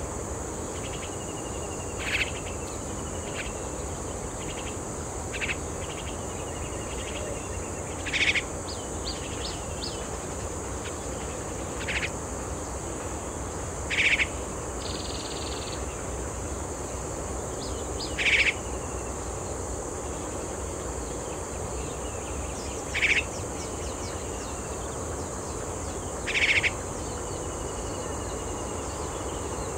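Short bird calls, eight in all, spaced two to five seconds apart, over a steady high-pitched insect drone, with fainter thin bird whistles between them.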